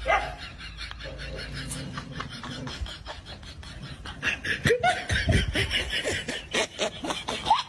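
A person laughing in quick breathy bursts, loudest and fastest in the second half.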